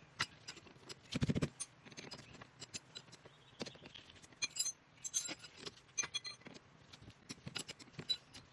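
Irregular metallic clicks and clinks of wrenches and brake parts being handled on a car's brake caliper, with a louder knock about a second in and a few ringing metal taps around the middle.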